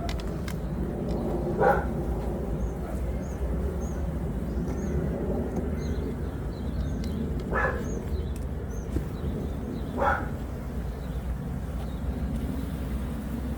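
Steady low buzzing of an opened honeybee colony, broken by three short barks about 2, 7.5 and 10 seconds in, with faint high chirps in between.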